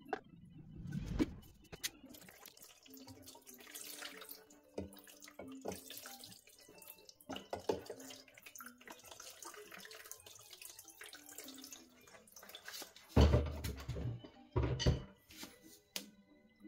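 Cleaning fluid splashing, trickling and dripping as an oil filter housing and oil cooler are rinsed and brush-scrubbed by hand over a bucket, with small clicks of metal parts being handled. Two heavier low knocks come near the end.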